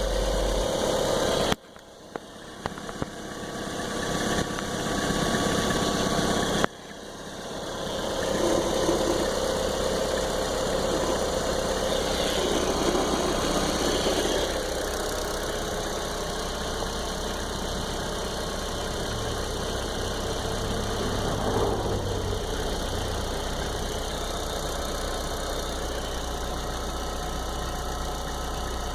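1.8T turbocharged engine running cold after a night at low air temperature. For about five seconds, starting about nine seconds in, a strange extra noise sits over the engine sound. It is a cold-only noise that goes away about a minute after starting, once the engine warms.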